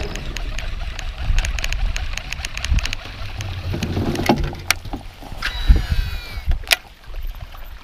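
Shimano Antares DC baitcasting reel: light ticking as the lure comes in, a sharp click, then a cast with the reel's electronic brake whine falling in pitch as the spool slows, and another sharp click as the reel re-engages near the end. A low rumble runs underneath.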